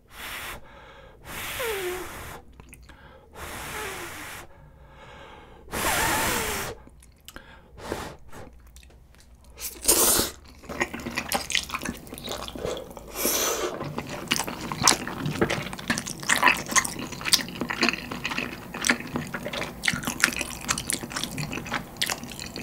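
Spicy stir-fried instant noodles being slurped in several long breathy pulls through the first ten seconds, some ending in a falling whistle. After that comes close-miked chewing, a dense run of short wet smacks and clicks.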